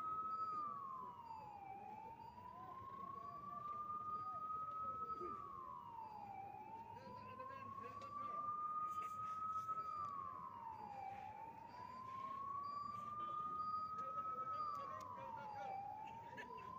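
A siren wailing in a slow cycle: each time it rises gradually in pitch for about three seconds, then drops quickly, and it repeats roughly every four and a half seconds.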